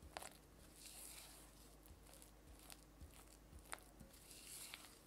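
Silicone spatula creaming softened butter and powdered sugar against the sides of a glass bowl: faint soft swishes of the smeared butter, with a few light clicks of the spatula on the glass.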